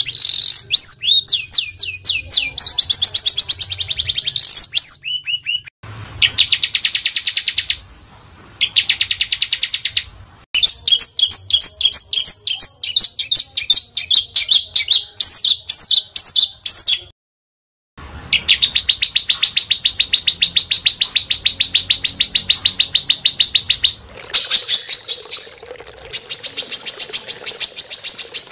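Small songbirds singing fast, harsh rapid-fire song: dense trains of repeated high chips and trills, several notes a second. They come in runs of one to six seconds with short breaks between them.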